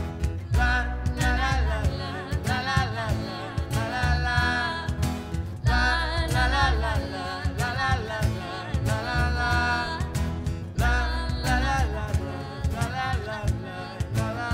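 Acoustic band performing a song: several voices singing together in harmony over strummed acoustic guitars and a low beat.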